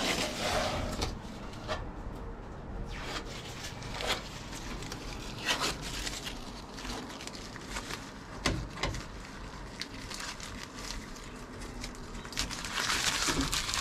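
Green masking tape being peeled off a metal dash panel and crumpled in the hands: irregular tearing and crinkling rustles with scattered clicks, growing denser and louder near the end.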